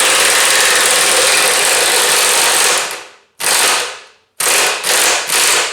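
Power impact wrench hammering on a stubborn rear bumper bolt of a pickup truck. One continuous run of about three seconds, then several short bursts with brief pauses between.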